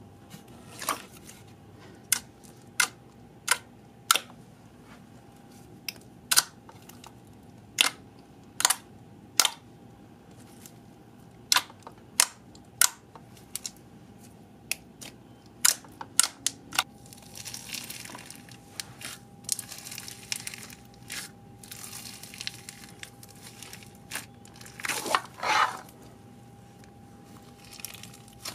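Slime being poked, pressed and stretched by hand: a long run of sharp pops and clicks as fingers push into a clear glittery slime, then a crackling, crinkly stretch and a louder squishing crunch about twenty-five seconds in.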